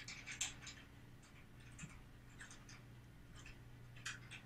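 Eurocrane 500 camera crane moving slowly, running quietly apart from about ten faint, irregular clicks and ticks from its parts.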